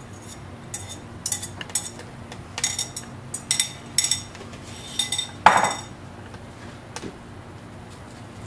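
A kitchen utensil clinking and scraping against a bowl and a pan while egg is added to spaghetti and tossed: about a dozen short, ringing clinks, then one louder, longer scrape a little past halfway.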